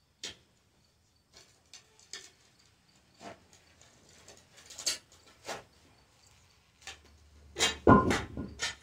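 A long-handled shovel scraping and striking into a packed dirt floor: about a dozen short, sharp strokes at uneven intervals, the heaviest thud about eight seconds in, followed by two more scrapes.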